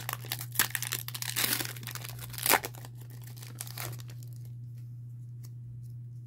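Foil wrapper of a Pokémon card booster pack being torn open and crinkled, with one loud rip about two and a half seconds in; the crinkling dies away after about four seconds, leaving a few light clicks over a steady low hum.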